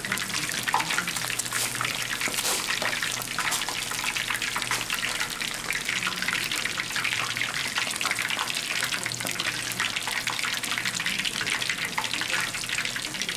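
Whole scorpionfish deep-frying in oil in an iron pan: a steady, dense sizzle and crackle of bubbling oil. This is its first, lower-temperature fry at about 160 °C, before a second fry.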